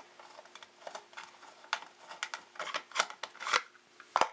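Plastic cover of a water pump pressure switch being unscrewed and lifted off by hand: a run of small clicks and scrapes, with a sharper click near the end, over a faint steady hum.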